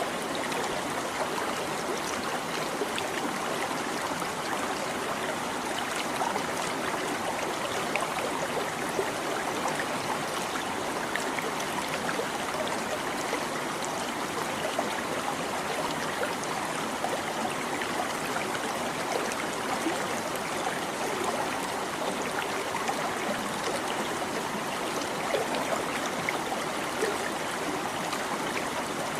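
Small stream babbling and trickling steadily, with many small splashes and gurgles.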